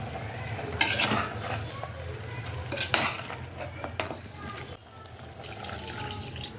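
Metal kitchen utensils and vessels clinking and scraping, with sharp clinks about a second in, near three seconds and at four seconds, over a steady low hum.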